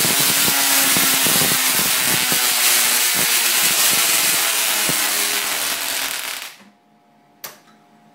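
Tesla coil discharging: loud, dense crackling buzz of electrical arcs leaping from the toroid, cutting off suddenly about six and a half seconds in. A single sharp click follows about a second later.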